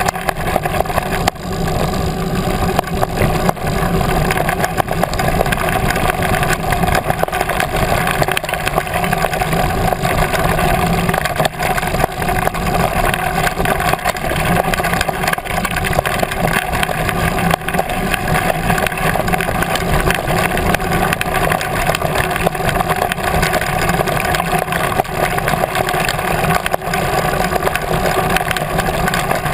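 Loud, steady rumble and rattle of a mountain bike riding over a rough gravel fire road, picked up by a camera mounted on the handlebars: tyres on loose gravel, and the constant jolting of a bike without good suspension.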